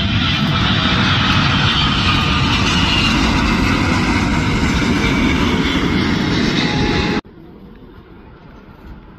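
Turkish Airlines Boeing 777-300ER jet airliner passing low overhead on final approach with its gear down: a loud, steady jet rush with a faint whine from its two GE90 engines' fans. The noise cuts off abruptly about seven seconds in, leaving a much quieter background.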